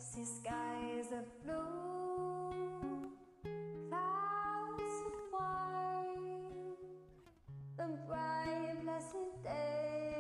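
Background music: a song with a voice singing over plucked guitar and a low bass line.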